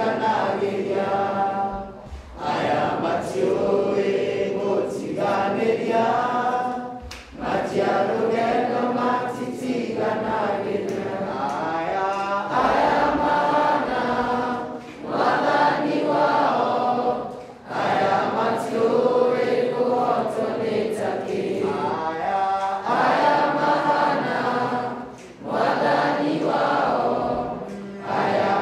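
A group of teenage boys singing a song together, in phrases of a few seconds with short breaks for breath between them.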